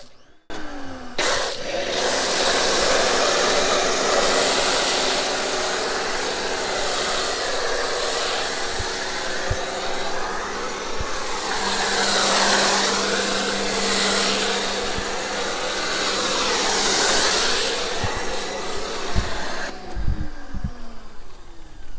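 Foam cannon on an electric pressure washer spraying car-wash foam: a loud, steady hiss whose tone shifts up and down, with a steady low hum underneath. The spray starts about a second in and stops a couple of seconds before the end.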